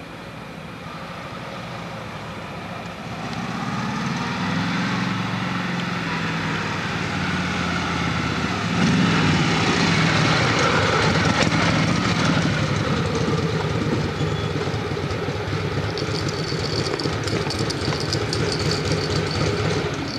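Motorcycle with a sidecar attached, its engine running as it rides up and goes by, growing louder to a peak about nine seconds in, then running steadily.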